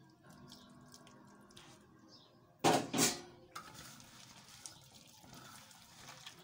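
Water poured from a plastic mug into a steel bowl of shredded cabbage and cornflour, with a short loud splash about two and a half seconds in. Then come the soft wet squelches of a hand kneading the cabbage-and-cornflour batter.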